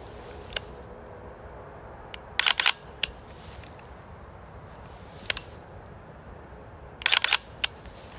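AR-15 dry-firing with a Mantis Blackbeard trigger-reset system: sharp mechanical clicks of the trigger breaking and resetting, some single and some in quick strings of three or four, with pauses of a second or two between strings.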